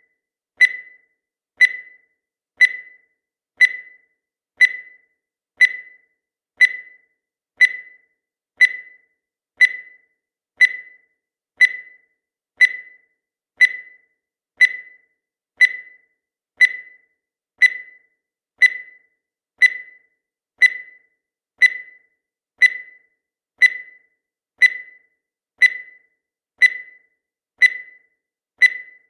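Countdown timer sound effect: a short, high blip once every second, each dying away quickly.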